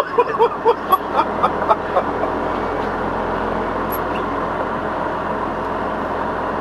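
Steady running noise inside a tractor-trailer cab, with a quick run of short, sharp pitched chirps about four a second through the first two seconds.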